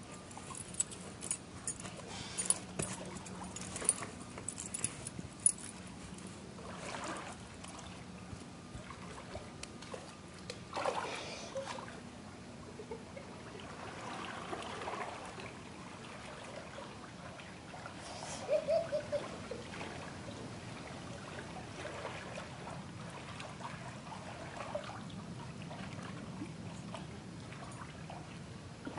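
Swimming pool water lapping and splashing as people get in and move through it, with a run of short sharp ticks in the first few seconds.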